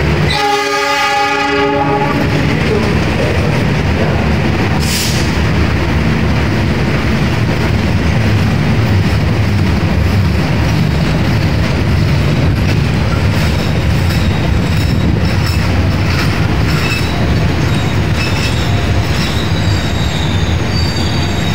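Passenger coaches rolling past close by, with a steady rumble and clatter of wheels on rail. A train horn sounds once for about a second and a half at the start. Thin high wheel squeals come in during the last several seconds.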